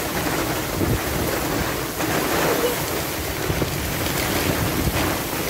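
Storm wind of about 40 knots rushing over a sailboat and buffeting the microphone, over choppy sea, as a steady loud rushing noise.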